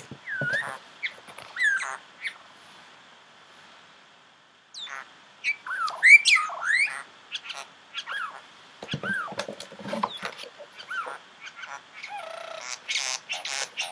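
Bird calls: short chirps and sliding squawks in bursts, with a lull of about two seconds, then a rustling noise near the end.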